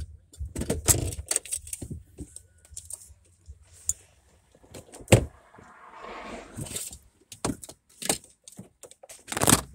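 Irregular clicks and jingling rattles of keys and small things being handled inside a parked car. A car drives past about six seconds in.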